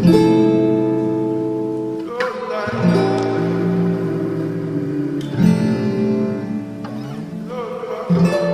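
Instrumental music: guitar chords struck and left to ring, a new chord every two to three seconds.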